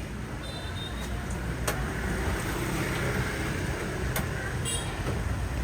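Street traffic rumble from a motor vehicle going by, swelling in the middle, with a couple of sharp clicks.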